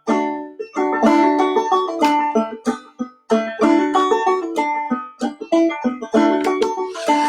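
Clawhammer banjo playing an old-time instrumental passage: a steady rhythm of picked and down-stroked notes.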